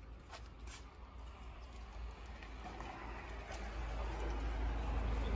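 Faint steady background noise with a low rumble and a few soft clicks, growing louder over the last couple of seconds.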